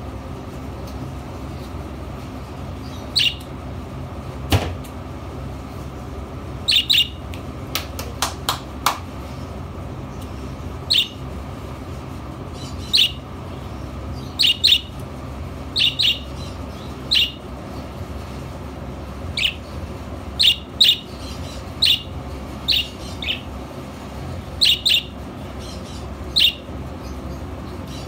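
Budgerigar giving short, sharp chirps, singly and in quick pairs, every second or two over a steady low hum. A single knock comes about four and a half seconds in, and a quick run of clicks around eight to nine seconds.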